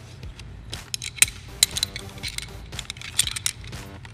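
Metal climbing hardware, carabiners and a Petzl ASAP rope-grab backup device, clicking and clinking as it is handled and clipped onto the rope, a string of sharp irregular clinks.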